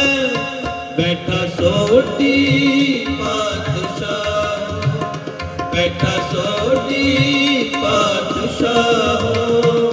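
Sikh kirtan: two male voices singing a shabad over harmoniums, with tabla keeping the rhythm.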